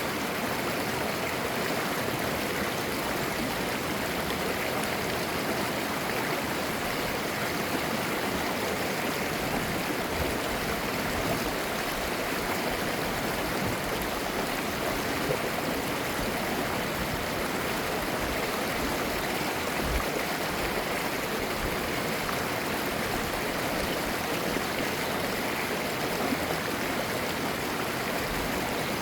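Clear mountain stream running steadily over rocks, a continuous rushing and babbling of water.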